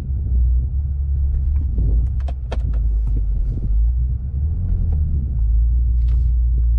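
BMW F10 M5's twin-turbo V8 running with a steady low rumble as the car is driven against wheels locked by over-long lug bolts binding in the hubs. The car feels as if the brakes are stuck. Scattered clicks and knocks sound from the car as it is dragged.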